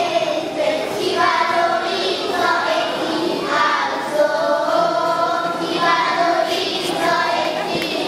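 Children's choir singing together into microphones, in phrases with brief pauses between them.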